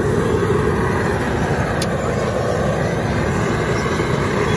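Steady low roar of a propane burner under a large aluminium crawfish-boil pot at a rolling boil.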